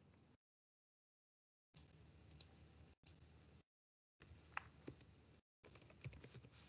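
Faint computer keyboard and mouse clicks, a handful of sharp ones, in short patches with the sound dropping to dead silence in between.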